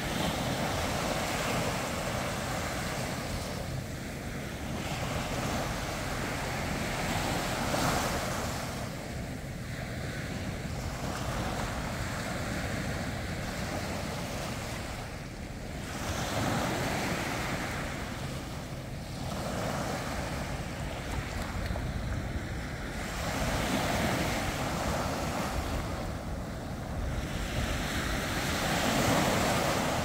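Small sea waves breaking and washing up a sandy beach, the surf swelling and easing every few seconds, with wind buffeting the microphone.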